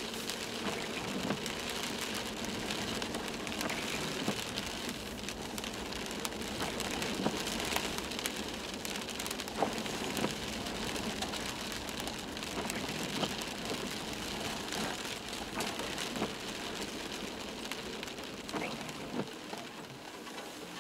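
Toyota Land Cruiser 120 driving on a rough dirt track, heard from inside the cabin: a steady crunching hiss of tyres on gravel with many small ticks and knocks scattered through it.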